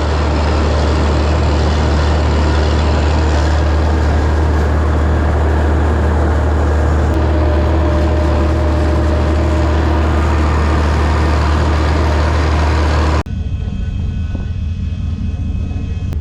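Farm tractor engine running steadily under load while pulling a seed drill, a deep, even drone. About 13 seconds in it cuts to a quieter engine sound.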